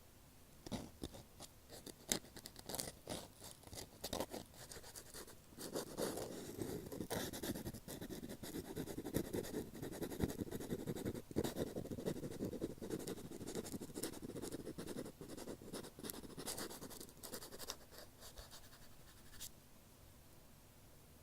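Ear pick scratching and scraping close against a TASCAM DR-40 recorder's microphone, the ear-cleaning sound of ASMR: quick dense scratches with sharp clicks, busiest in the middle, stopping a couple of seconds before the end.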